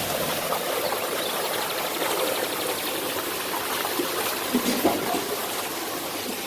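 Waterfall and its stream rushing and splashing steadily, with a short louder patch about four and a half seconds in.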